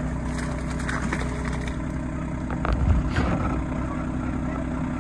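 RK25 compact tractor's diesel engine running steadily, with a few sharp knocks and clanks near the middle.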